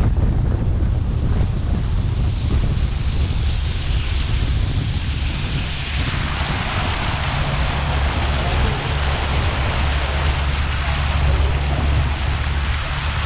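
Wind buffeting the microphone on a moving boat, over a steady low rumble and rushing water. The water hiss grows louder about six seconds in.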